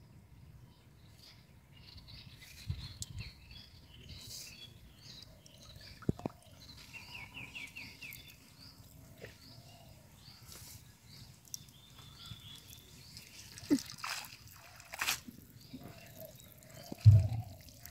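Cast net being hauled out of a pond: water dripping and splashing from the wet mesh as it is gathered in, with scattered small splashes and a heavy low thump near the end.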